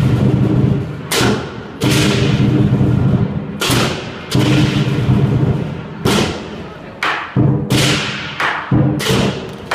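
Lion dance percussion: a large lion dance drum beaten hard with crashing cymbals, struck in loud accents with ringing between them. The accents come closer together in the last few seconds.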